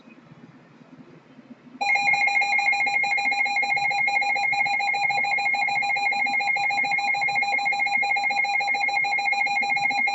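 Emergency Alert System two-tone attention signal, sounding steadily for about eight seconds. It starts about two seconds in and cuts off sharply, announcing an incoming severe thunderstorm warning.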